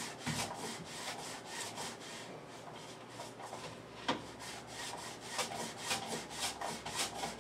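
A whole potato pushed back and forth over the blade of a plastic mandoline slicer, a steady run of rasping strokes. These are the first strokes, as the potato's cut face gets wet enough to glide.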